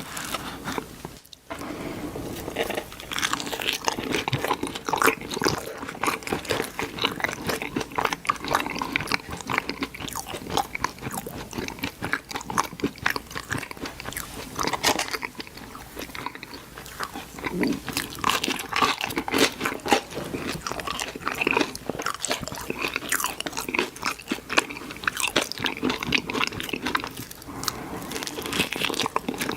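Close-miked eating: crunchy bites and chewing of fast food, a dense run of crisp crackles and mouth sounds with a short pause about a second in.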